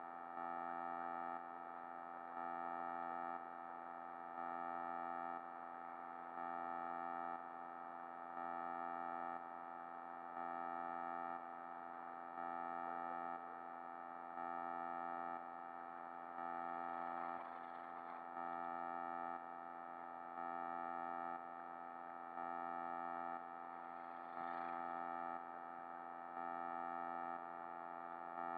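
Background music: sustained synthesizer chords that swell louder and drop back about every two seconds.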